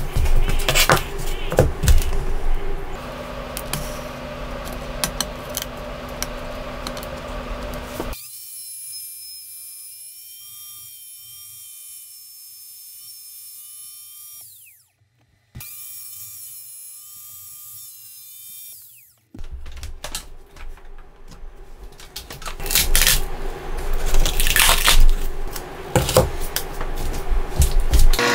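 Trim router (RYOBI MTR-42) running at high speed and cutting wood, a high whine mixed with rough cutting noise and sharp spikes. In the middle the cutting noise drops away for about ten seconds, leaving a quieter steady high whine that cuts out briefly. Then the loud cutting returns.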